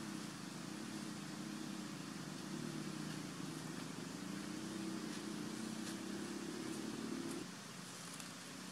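A low, wavering engine drone that drops away suddenly about seven and a half seconds in, with faint light ticks above it.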